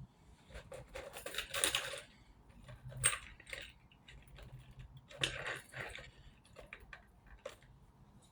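Small metal clicks, clinks and rustles of jewellery being handled, gold hoop earrings being put on, in a few short bursts.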